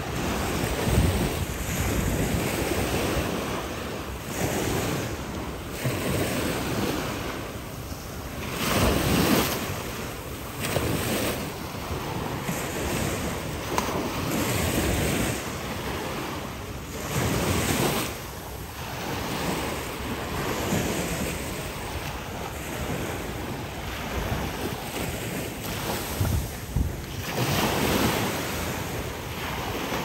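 Surf washing onto the beach, swelling and easing every few seconds, with wind buffeting the microphone.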